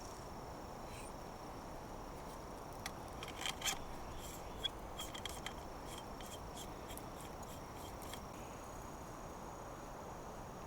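Steady high-pitched insect trilling over faint outdoor background noise, with a run of light clicks and scrapes from about three to eight seconds in.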